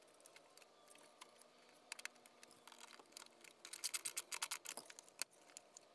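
Faint, irregular metallic clicks and scrapes, bunched together a few seconds in, as a bare copper ground wire is worked down into a ground bus bar under a loosened screw in an RV electrical distribution panel.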